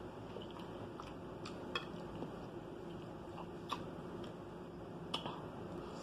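A person chewing a mouthful of rice, with a few short sharp clicks over a low steady hum.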